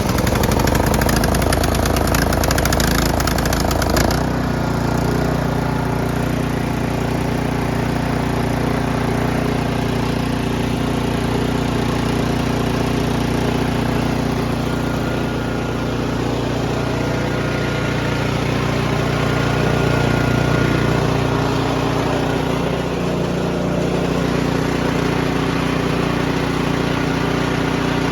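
Snowblower's small single-cylinder four-stroke gas engine running after starting, rough at first, then settling about four seconds in to a steady run. It runs with a substitute spark plug fitted, so the old spark plug was the cause of the hard starting.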